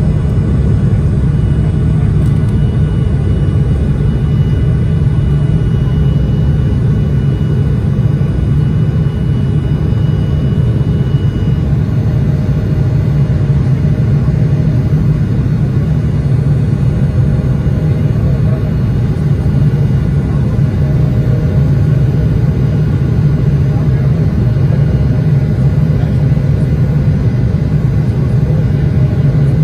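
Cabin noise of a Boeing 737-700's CFM56-7B turbofan engines at takeoff thrust, heard from a window seat as the jet leaves the runway and climbs: a loud, steady, deep rumble that holds even throughout.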